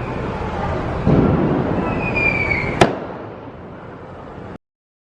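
Diwali firecrackers going off: a deep boom about a second in, a whistling firework sliding down in pitch, then a sharp crack near three seconds. The crackle fades and cuts off suddenly to silence near the end.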